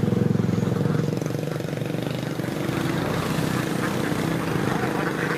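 A small engine running steadily, loudest in the first second or so. The calls of a large flock of laying ducks sound behind it.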